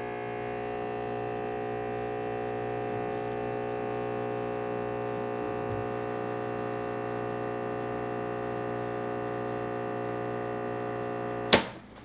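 Rancilio S24 espresso machine pumping water through the coffee during a shot, a steady buzzing hum. About eleven and a half seconds in, a click cuts it off as the shot is stopped at about 27 seconds.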